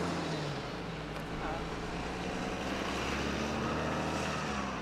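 Street traffic: a road vehicle's engine running with a steady low hum, its pitch stepping slightly about half a second in and again near the end.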